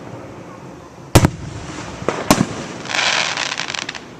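Aerial fireworks going off: a sharp bang about a second in, two more bangs a second later, then about a second of dense crackling from a crackle shell, fading near the end.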